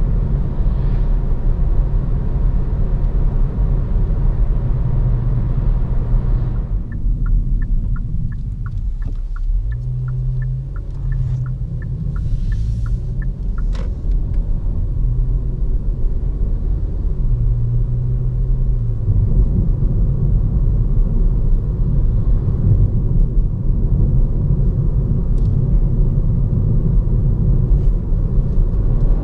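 Cabin sound of a Hyundai i30 Fastback N-Line with its 1.4 T-GDi turbocharged four-cylinder petrol engine. Steady road and tyre noise at about 90 km/h eases as the car slows to village speed. For about seven seconds in the middle the turn signal ticks about twice a second over a low engine hum, and in the last third the engine pulls harder and the road noise rises as the car speeds up again.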